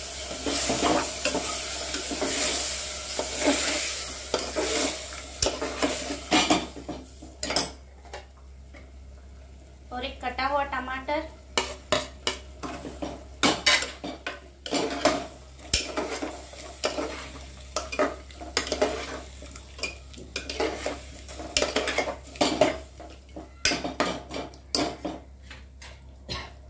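A metal spoon stirring and scraping chicken and green masala paste as it fries in an aluminium pressure cooker. The food sizzles hard for the first few seconds, then the sizzle eases and the spoon clinks and scrapes against the pot again and again.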